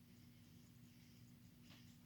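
Near silence: quiet room tone with a steady low electrical hum, faint high-pitched chirping, and one soft tick near the end.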